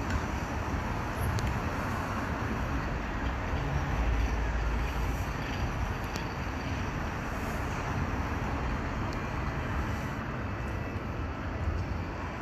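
Steady rumble of road traffic and a heritage double-deck tram running away along the promenade tracks, with no distinct knocks or horn.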